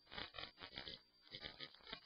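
Faint mouth noises right at the microphone, in irregular short bursts.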